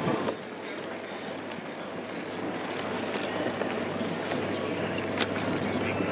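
Bicycle rolling over the planks of a wooden boardwalk, a steady rolling noise with scattered sharp clicks and rattles as the wheels cross the boards.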